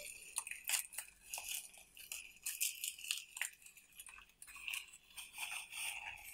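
Bubble-wrap packaging crinkling and crackling in irregular bursts as hands pull and unwrap it.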